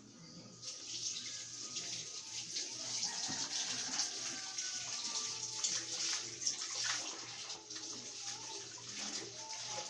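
A steady rush of running water starts about half a second in, with the clicks of laptop keys being typed over it.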